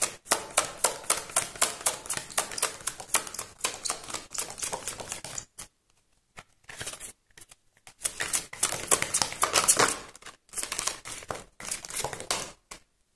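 A deck of oracle cards being shuffled by hand: rapid flurries of cards clicking and slapping together, with short pauses near the middle.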